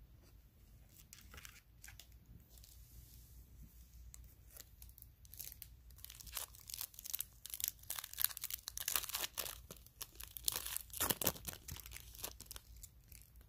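A Topps 2020 Series 1 baseball card pack wrapper crinkling and being torn open. A few scattered crackles give way about halfway through to a dense run of sharp crackling that is loudest near the end.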